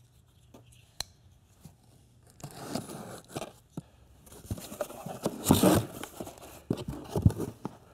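Cardboard box being torn open by hand: irregular tearing and rustling of the flaps, loudest a little past the middle, with a few sharp knocks near the end.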